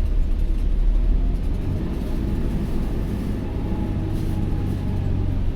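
Alexander Dennis Enviro400H City hybrid double-decker bus heard from on board while moving: a steady low rumble of drivetrain and road, with a faint whine that rises slightly about halfway through.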